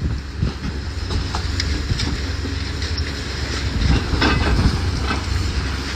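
Demolition machinery running with a steady low rumble and scattered clanks and knocks, a louder cluster of them about four seconds in.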